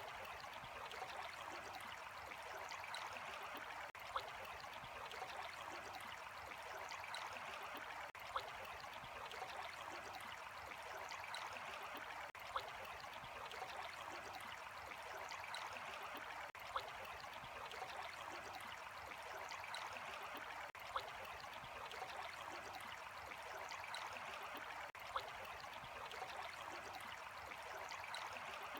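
Water running steadily with an even rushing, like a small stream. A short click repeats regularly, about every four seconds.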